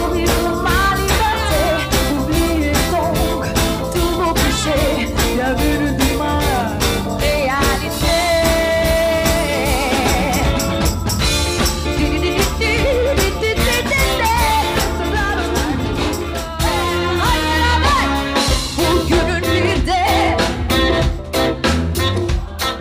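Live pop band playing a song, with a woman singing lead over a steady drum beat, bass guitar and guitar.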